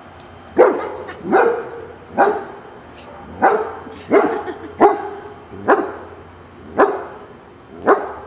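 Huskita puppy barking: nine short, sharp single barks, roughly one a second.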